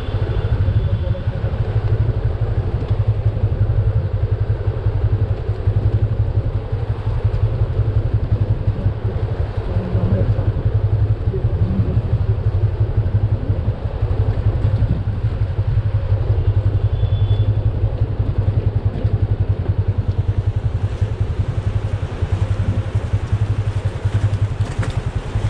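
Motorcycle engine running steadily under way, a low, even engine note with its fast firing pulses, over road and wind noise.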